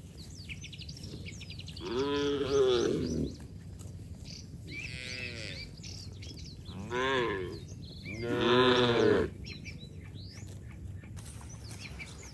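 Cattle mooing: four calls, each about a second long, rising then falling in pitch, the second one fainter. Faint bird chirps sound in the background.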